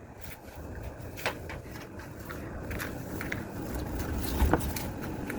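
A few light knocks and scrapes, the loudest about four and a half seconds in, over a steady low rumble.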